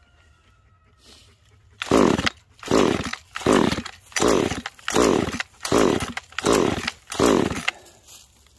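Neo-Tec 2500 top-handle two-stroke chainsaw being pull-started: eight quick rope pulls in a row, each a short whir that falls in pitch as the engine turns over. It never fires; the saw will not start.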